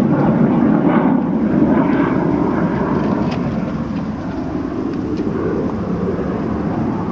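Engine of an aerobatic display airplane droning steadily in flight, growing a little fainter after a few seconds.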